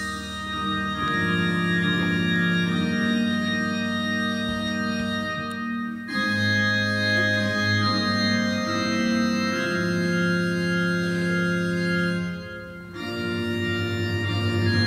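Organ playing slow, sustained chords that change every few seconds, with a brief drop in level about 13 seconds in.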